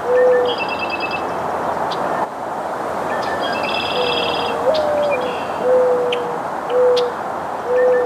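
Mourning dove cooing: a soft coo, then its song, one longer coo that steps up in pitch and slides back down, followed by three shorter level coos. Another bird trills and chips faintly higher in pitch.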